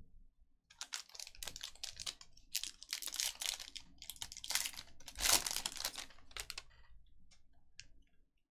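Trading-card pack wrapper being torn open and crinkled: a run of crackling, rustling bursts that dies away about seven seconds in.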